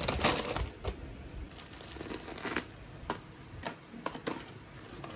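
Hands handling packaging: a plastic snack bag rustling, then a small cardboard box being opened, with scattered clicks, scrapes and rustles of cardboard and paper.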